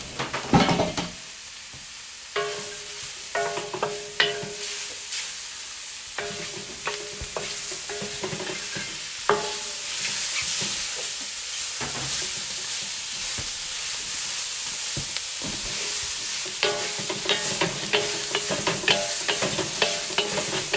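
Vegetables and chicken sizzling in a very hot wok, stirred and tossed with wooden spatulas that scrape and clack against the pan, making it ring briefly several times.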